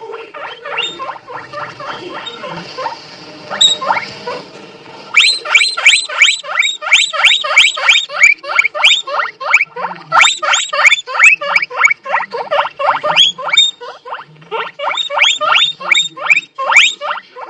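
A small animal squeaking over and over in short high squeaks, each rising quickly in pitch. The squeaks are sparse and softer at first, then about five seconds in they turn loud and rapid, about five a second, with a brief lull near the end.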